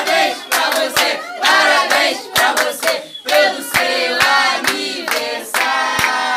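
A small group singing a birthday song in Portuguese, with hands clapping along to the beat.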